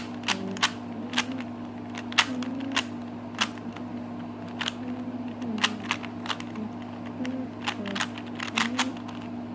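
Plastic Rubik's Cube being twisted by hand: irregular sharp clicks as the layers snap into place, about one to three a second.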